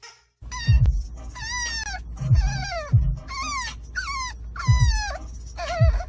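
A dog whining in a run of pitched cries that fall in pitch, about one a second.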